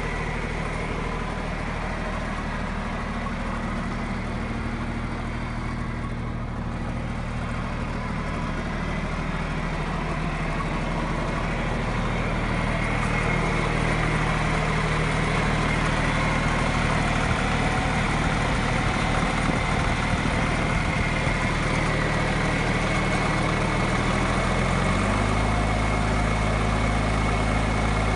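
John Deere 310-D backhoe's four-cylinder diesel engine running steadily at idle, stepping up in speed about three seconds before the end.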